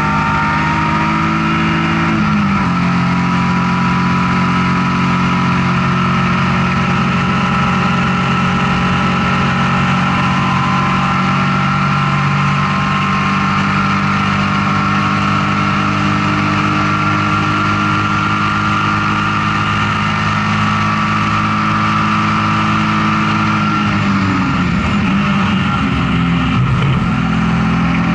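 BMW E36 M3 race car's inline-six engine running hard, heard from inside the stripped cockpit with road and wind noise. The engine pitch drops about two seconds in, holds nearly steady for a long stretch, then falls and wavers near the end.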